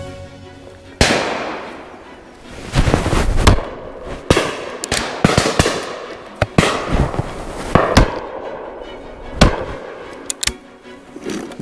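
Shotgun shots fired in a rapid, irregular series by several guns on a driven game shoot. Some shots are loud and close and others fainter, each followed by a short echo.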